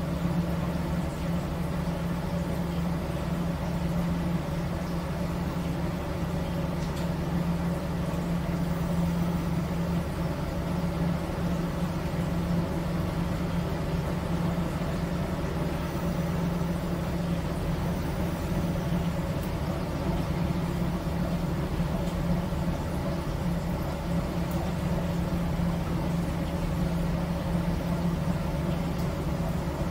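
The ferry's MWM marine diesel engine running steadily, heard from inside the wheelhouse as a deep, even hum that holds its pitch.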